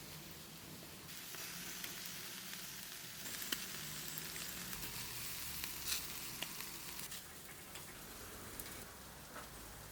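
Food sizzling on a hot grill: a steady hiss with a few sharp crackles and pops, the loudest about three and a half and six seconds in.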